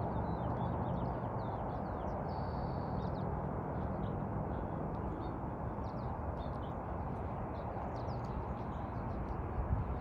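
Birds chirping in scattered short high calls, with one brief held high note about two seconds in, over a steady low background rumble.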